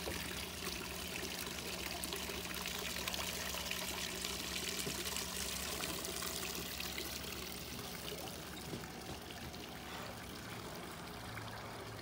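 Water pouring and trickling steadily into a backyard pond from a pipe, fading near the end.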